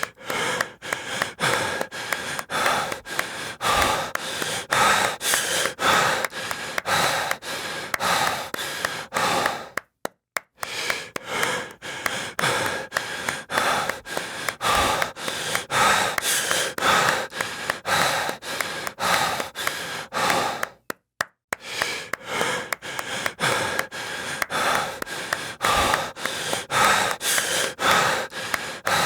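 Heavy breathing, in and out, mixed with a rapid run of sharp claps, several a second. The sequence drops out to silence briefly twice, about a third and two-thirds of the way through.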